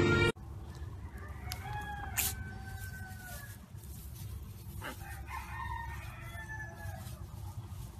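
Farm animal calls: two long, slightly falling pitched calls, one about two seconds in and another around six seconds, over a low steady hum, with a sharp click about two seconds in.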